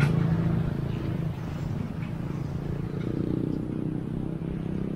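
Passing road traffic: one motor vehicle's engine hum fades away over the first second or so, and another engine comes up about three seconds in.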